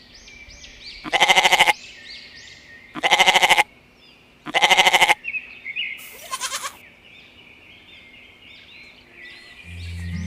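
Three loud, quavering bleats of a sheep or goat about a second and a half apart, then a fainter fourth, over birdsong chirping. Music begins near the end.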